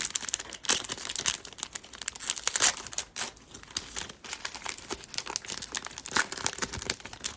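Foil baseball-card pack wrapper crinkling and tearing as it is pulled open by hand, with irregular rustling.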